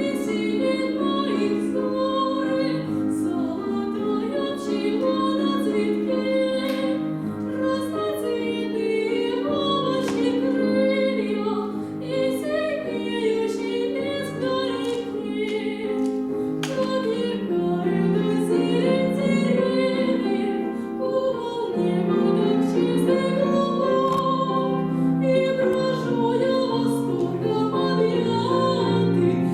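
A girl singing a classical song in a trained, operatic style with vibrato, accompanied by piano.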